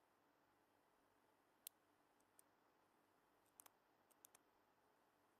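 Faint, scattered clicks of a lock pick and tension wrench working the pins of an AMIG multipoint padlock during picking: a single click, then a quick pair and a short cluster of three. Otherwise near silence.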